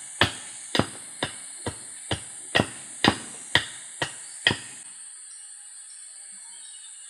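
A wooden mallet strikes the spine of a machete blade about ten times, roughly twice a second, driving the blade down through a green wooden pole to split it (batoning). The blows stop about four and a half seconds in, leaving a steady high-pitched background hiss.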